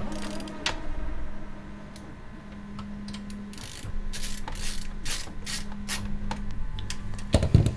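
Hands working on computer hardware inside a PC case: irregular clicks and short scrapes of metal and plastic parts, with a sharper cluster of clicks near the end, over a faint low steady hum.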